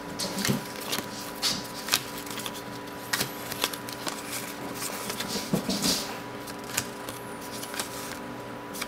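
A stack of cardboard basketball trading cards being handled, each card slid off the front of the stack and onto the back: an irregular run of short papery flicks and rustles.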